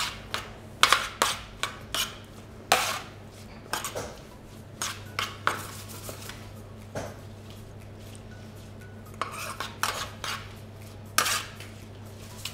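A metal spoon scraping and clinking against a black oven tray as chopped tomato and red onion are stirred and spread. The strokes are irregular, sparse through the middle and bunching up again near the end, over a low steady hum.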